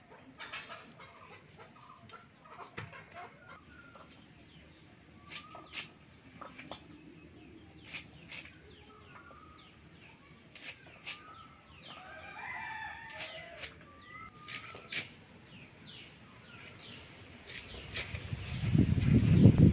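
Chickens clucking, with a rooster crowing about twelve seconds in, among scattered sharp clicks and taps. Near the end a loud low rumble takes over.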